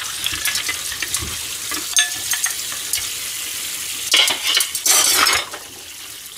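Kitchen tap running onto dishes in a stainless steel sink as oily crockery is rinsed by hand, with light clinks of a metal ladle and chopsticks against the dishes. Two louder rushes of noise come about four and five seconds in, and the sound drops lower just before the end.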